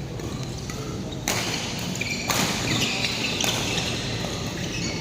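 Badminton being played in a sports hall: a few sharp hits, about a second apart, against steady hall noise, with short squeaks of shoes on the court floor.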